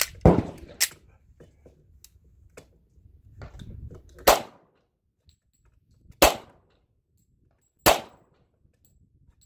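Three semi-automatic pistol shots about a second and a half to two seconds apart, each a sharp crack with a short ringing tail. They come after a couple of sharp clacks near the start.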